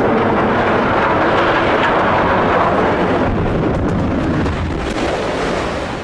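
Demolished power-plant smokestack toppling and crashing to the ground: a loud, continuous rumble of the collapse that eases off near the end.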